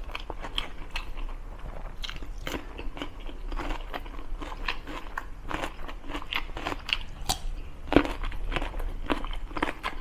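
Close-miked chewing, with irregular crisp crunches as raw vegetables are bitten and chewed; one sharper, louder crunch comes about eight seconds in.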